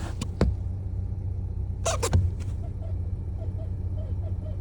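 Seat Leon 1.5 TSI four-cylinder turbo petrol engine running with a steady low hum, with sharp clicks near the start and about two seconds in. From about three seconds on there is a faint chirping squeak that repeats at a fairly even pace, which the owner puts down to the clutch or flywheel.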